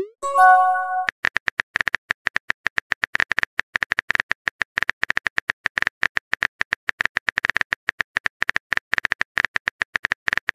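Rapid simulated phone-keyboard tap clicks as a text message is typed. At the very start a rising swoosh and a short chime sound as a message is sent.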